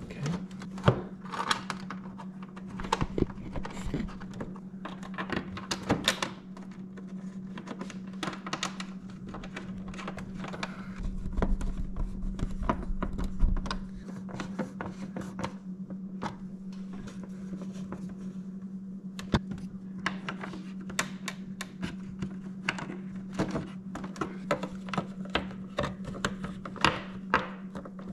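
Plastic motorcycle fairing panels and trim being fitted by hand: scattered clicks, taps and knocks of plastic parts snapping together and a screwdriver working, over a steady low hum.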